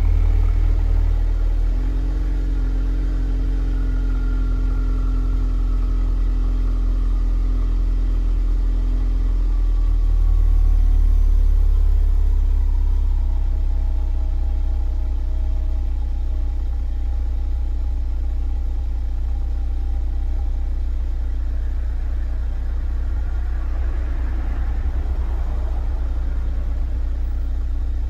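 Ford Focus RS Mk3's 2.3-litre turbocharged four-cylinder idling steadily through its stock exhaust after a cold start. A fainter higher whine in the sound drifts slowly down in pitch over the first twenty seconds or so, as the cold-start idle eases down.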